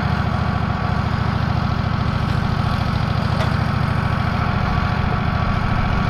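Wood-Mizer LT15 portable sawmill's engine running steadily, with an even low pulsing.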